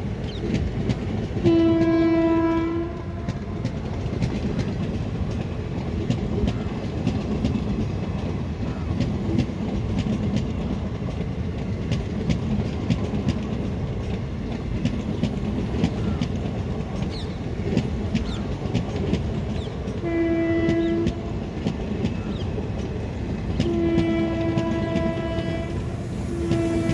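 Loaded goods wagons of a parcel train rolling slowly past: a steady rumble with wheels clicking over the rail joints. A train horn sounds one steady note four times, once about a second and a half in and three times in the last seven seconds.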